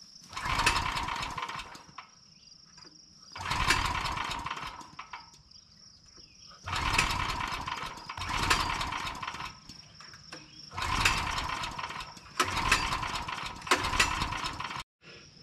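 Dual-fuel portable generator being cranked over and over, about seven tries of a second or so each, without catching: the generator won't start. Crickets chirp steadily between the tries.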